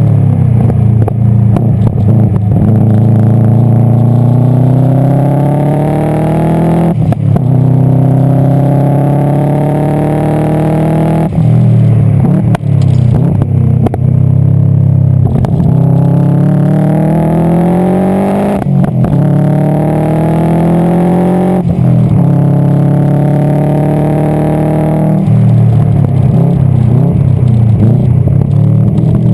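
Subaru Impreza STI GC8's turbocharged flat-four under hard acceleration on track, its revs climbing steadily and then dropping sharply about six times at gear changes or lifts, with short crackles around the drops. The car is running with an exhaust leak.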